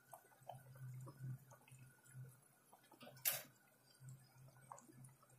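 Faint scattered pops and ticks of a pot of vegetable soup simmering on a gas stove, with one sharp click a little over three seconds in.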